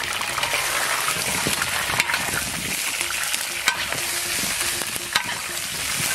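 Blanched, still-wet beef ribs sizzling steadily in hot oil in an iron wok as they are stir-fried, the water from blanching frying off. A spatula clacks sharply against the wok a few times.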